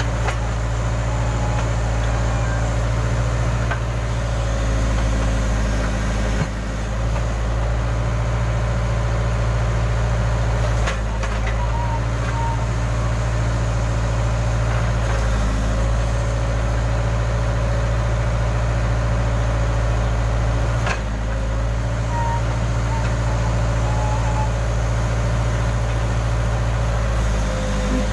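Case backhoe loader's diesel engine running steadily, with a faint whine above its hum and a few sharp knocks.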